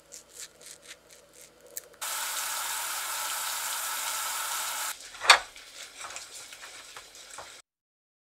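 Sugar-and-water syrup boiling hard in a stainless steel pot, a steady bubbling hiss for about three seconds that starts and stops abruptly. Soft light taps come before it, and after it a single loud sharp crack followed by a few small clicks.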